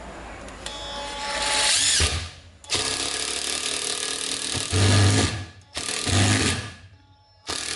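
Cordless impact driver driving a screw into a wooden block. Its motor whines up at first, then runs in several loud bursts with short pauses between them.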